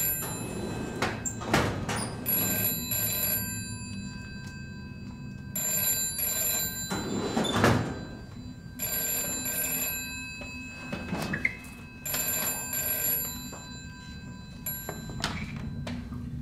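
Old-style desk telephone bell ringing in repeated bursts of about two seconds, with a few sharp thumps between the rings.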